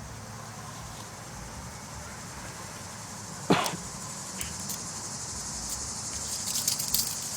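Crickets chirping in a steady high-pitched chorus, with one sharp click about three and a half seconds in and a few lighter metal clicks near the end as a pair of handcuffs is worked at with a nail in the keyhole.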